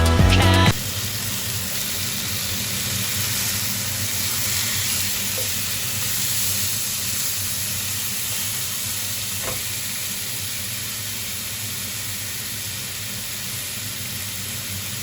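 Spiced lamb chops sizzling steadily as they grill. Background music cuts off under a second in.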